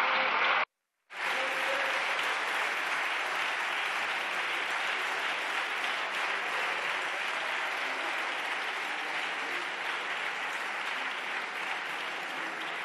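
Deputies in a parliamentary chamber applauding: dense, even clapping that drops out briefly just under a second in, then carries on and slowly eases off.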